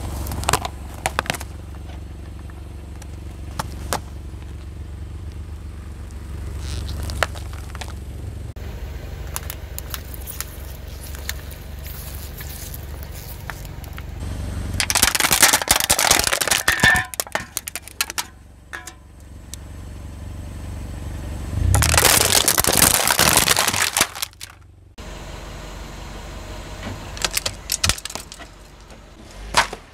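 Objects crunching and cracking under a car tyre, in two long bouts of dense crackling, over the low rumble of the car's engine.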